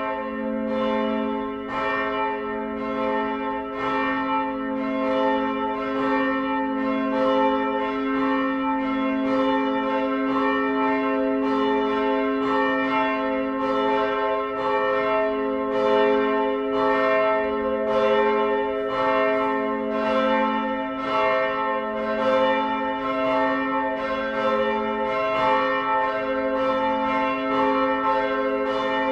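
Church bells ringing continuously, heard from inside the church. There are about two strikes a second, each ringing on into the next over a steady low hum.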